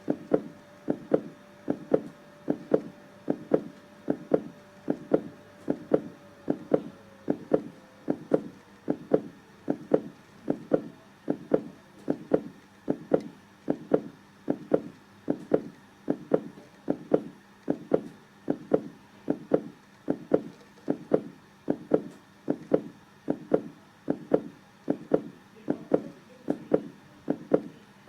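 Heartbeat sound: a steady rhythm of about one beat a second, each beat a double lub-dub thump.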